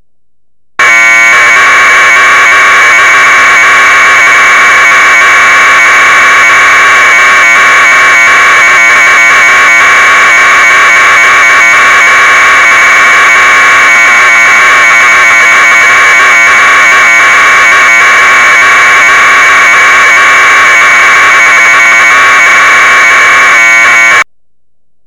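Minimodem software FSK modem sending data at 1200 baud as Bell 202 audio tones: a loud, continuous, rapidly warbling high-pitched data screech. It starts abruptly about a second in and cuts off abruptly about a second before the end.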